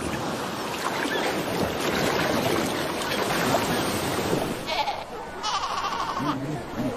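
Surf washing onto the beach, then a Cape fur seal pup calling: a few short, high cries in the last two seconds.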